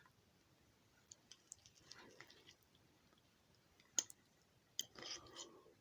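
Near silence with a few faint, scattered clicks and taps from handling utensils and containers in a kitchen. There is a sharper click about four seconds in and a brief soft scrape near the end.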